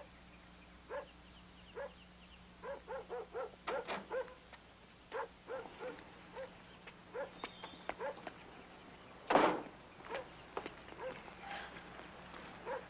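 A dog yipping and barking in short, scattered yelps, with one louder bark about nine seconds in.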